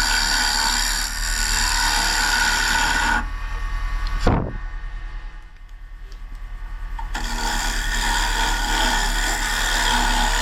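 Wood lathe running with a steady hum while a turning tool scrapes against the spinning maple bowl. The scraping stops about three seconds in, a short sharp sound follows about a second later, and the scraping starts again near the seven-second mark.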